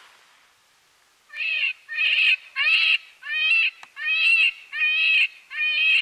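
Predator call sounding a distress cry used to bring in coyotes: a loud series of evenly repeated pitched cries, about one and a half a second, starting about a second in.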